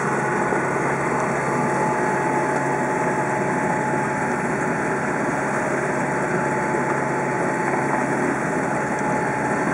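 Boat engine running steadily: a constant drone with an unchanging hum, under an even rushing noise.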